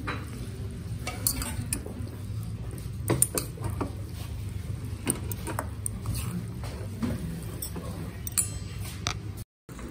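Steel chopsticks clinking against a stainless-steel bowl as they lift and turn buckwheat noodles, a handful of short scattered clinks over a steady low hum. The sound cuts out briefly near the end.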